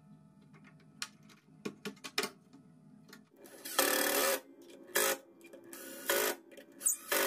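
Small clicks and knocks of handling, then an electric power tool run in short bursts of about half a second, four times in the second half.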